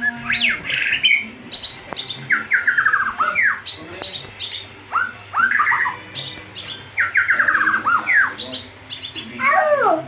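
White-rumped shama singing: varied phrases of fast runs of short repeated notes, sharp downward-sweeping whistles and brief high notes, with a falling call near the end.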